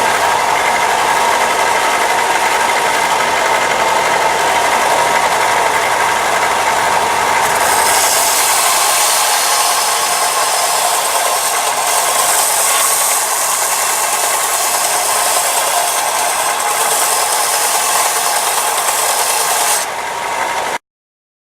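Power grinder running with a steady whine while grinding the bevel of a forged steel cleaver blade in rough grinding. The hiss of steel on the abrasive grows stronger about a third of the way in, and the sound cuts off abruptly near the end.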